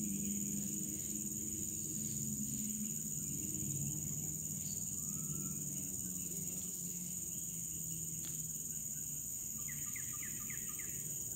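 Steady high-pitched drone of insects (crickets or cicadas) along the riverbank. A bird calls a quick run of about five short notes near the end.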